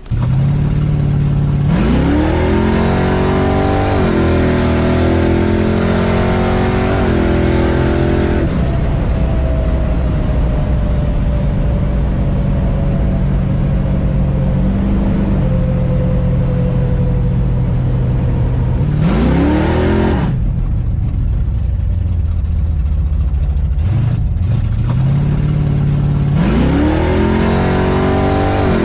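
A 1968 Plymouth Barracuda drag car's V8 pulls hard three times, its note rising sharply about two seconds in, again about two-thirds through and near the end. Between the pulls the engine settles back to a lower, steady run, heard from inside the car.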